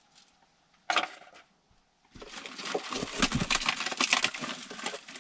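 Rummaging through a cardboard box of heater parts: a sharp knock about a second in, then about three seconds of dense rustling and crinkling of packaging with quick little clicks.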